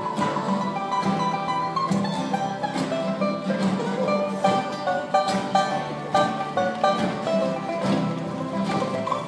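Acoustic bluegrass-style string band playing an instrumental break: banjos, acoustic guitars and fiddles with accordion, picking a quick melody over a steady strummed beat.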